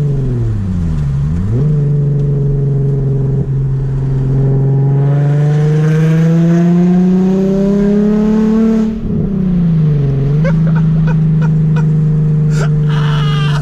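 Nissan Z's V6 running loud through a freshly fitted Tomei exhaust and ISR Y-pipe while driving, holding a steady drone. Its pitch dips and recovers twice and climbs slowly in between, with a few clicks near the end.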